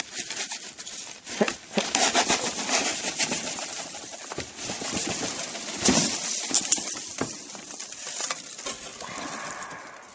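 A hand rummaging through loose styrofoam packing peanuts in a cardboard box: a crackly rustling with many scattered sharp clicks, dying away near the end.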